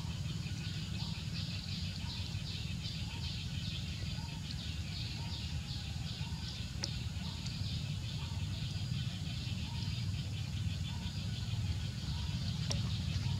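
Outdoor forest ambience: a short bird chirp repeats about once a second over a pulsing high buzz and a steady low rumble.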